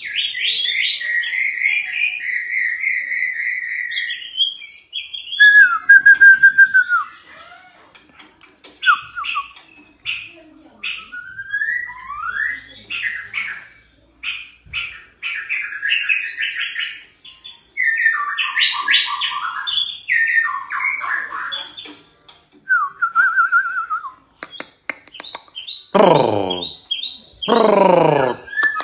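A white-rumped shama sings a varied song of quick whistled phrases, trills and chattering notes, broken by short pauses. Near the end come two long calls that slide steeply down in pitch.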